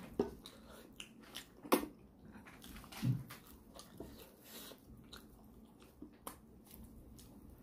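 Close-miked chewing and lip-smacking of a man eating gelatinous pork leg in gravy with his fingers. Wet smacks and clicks come every second or so, with a duller thump about three seconds in.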